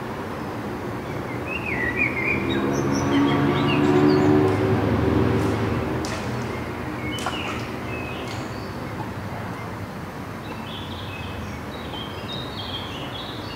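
A low motor hum swells to its loudest about four seconds in and then slowly fades, like a vehicle passing; small birds chirp briefly early on and again near the end.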